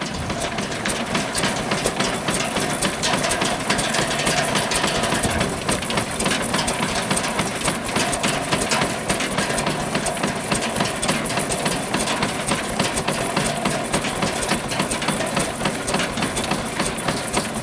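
A 1920 Ruston steam engine running and driving a sawmill frame saw: a steady, fast mechanical clatter.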